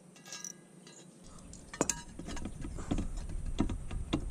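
Metal tools clinking and knocking on a boat's propeller and its nut as the propeller is worked off the shaft. A brief ringing clink comes near the start, then from about two seconds in a run of irregular knocks and clinks, louder toward the end.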